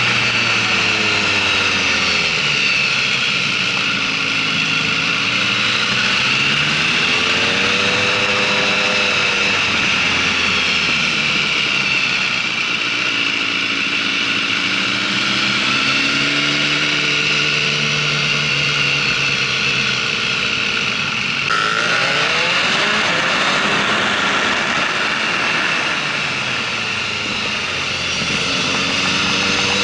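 Motorcycle engines running on a track at speed, the revs rising and falling repeatedly through corners and gear changes. The sound changes abruptly about two-thirds of the way in.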